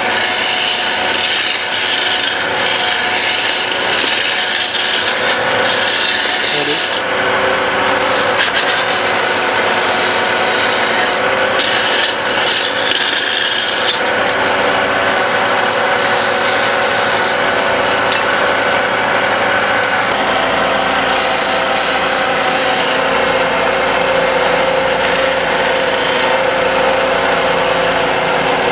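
Wood lathe running steadily with a hum while a tool rasps against the spinning wooden pestle blank; the scraping changes in texture several times.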